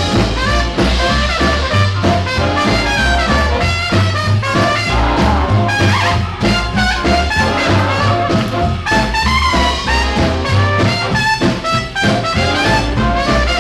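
Instrumental break of a swing band song: trumpets and trombones play over a walking bass line.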